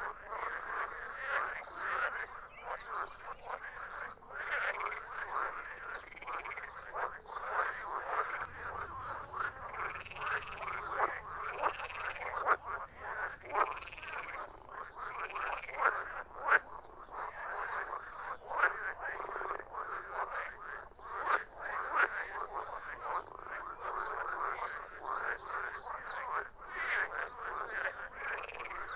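A chorus of frogs croaking: many overlapping, rapidly repeated calls with no break. In the middle a few longer, arching calls stand out, repeating about every second and a half.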